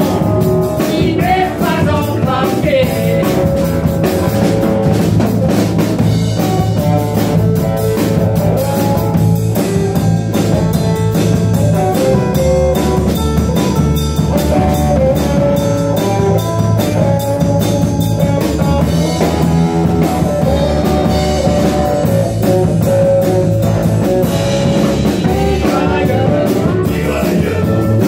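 Live rock band playing in a room: electric bass, drum kit and electric guitar, with a singing voice.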